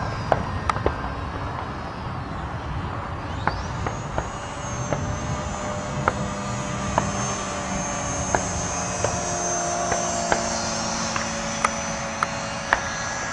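Electric motor and propeller of an Art-Tech Yak 54 radio-controlled model aerobatic plane whining as it flies, the whine rising sharply in pitch about four seconds in. Short sharp ticks come every second or so.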